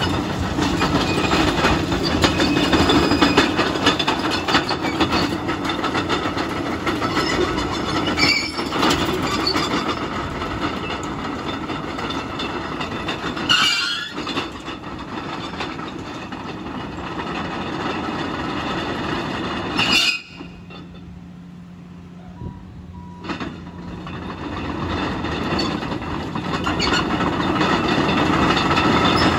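Caterpillar D6M LGP crawler dozer driving and turning: its diesel engine running under load with the steel tracks clanking and squealing over the rollers. About twenty seconds in the sound drops suddenly to a quieter steady engine hum for a few seconds, then builds back up as the dozer moves again.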